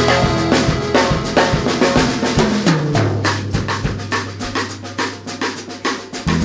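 Background music with a steady drum beat. About three seconds in, the bass slides down to one low held note and stays there until just before the end, when the full bass pattern returns.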